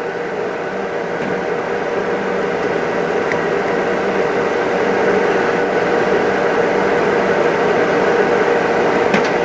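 Steady hum of running machinery with a steady mid-pitched tone, slowly growing louder, with a few faint light clicks.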